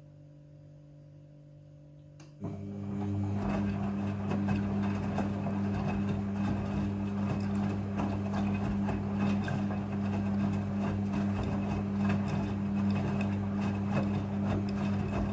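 Midea front-loading washing machine during its rinse: a faint hum, then about two and a half seconds in a steady, much louder low hum with a rushing, churning noise starts suddenly and runs on evenly.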